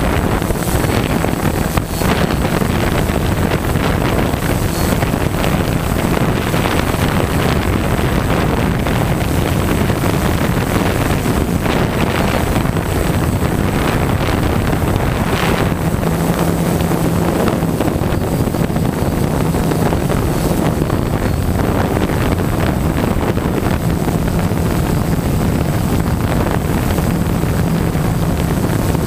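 DJI Phantom quadcopter's four electric motors and propellers buzzing steadily, picked up by the GoPro riding on the drone, with a low hum that grows stronger at times. Wind rushes over the microphone throughout.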